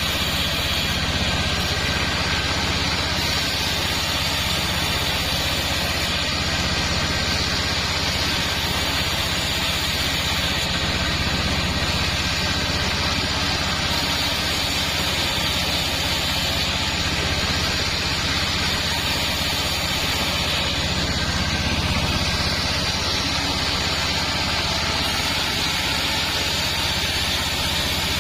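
Sawmill machinery running steadily, a constant low hum under an even hiss, with no pauses or changes in pitch.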